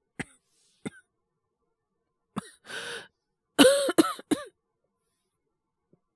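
Voice-acted coughing of a character with a bad cold and high fever: a couple of small throat catches, a drawn rasping breath, then a fit of about four harsh coughs a little past the middle.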